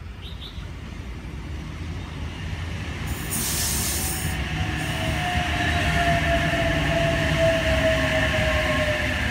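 Sydney Trains Oscar (H-set) double-deck electric train pulling into the platform and slowing, its rumble growing louder. A short burst of hiss comes about three seconds in, then a whine that falls slowly in pitch as the train slows.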